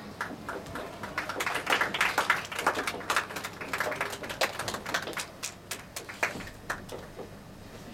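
Irregular taps and knocks of children's feet and wooden walking sticks on a stage floor, busiest in the middle and thinning out towards the end.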